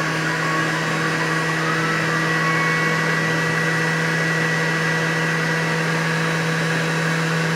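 Juiceman centrifugal juicer's motor running with a steady hum while produce is pressed down the feed chute with the food pusher.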